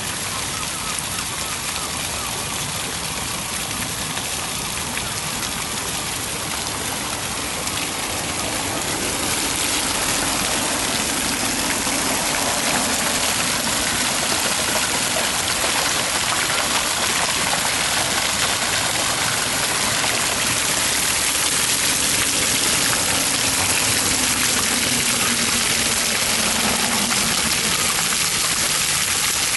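Many jets of a stone fountain splashing steadily into its basin, an even rushing hiss of falling water that grows louder about nine seconds in.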